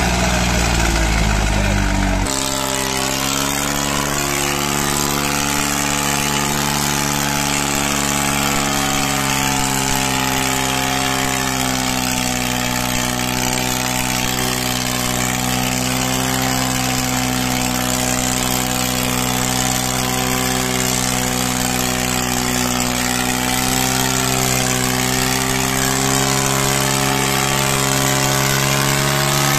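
New Holland tractor's diesel engine running steadily at a constant speed under load, pulling through soft soil. The sound changes abruptly about two seconds in, then holds an even, unchanging engine note.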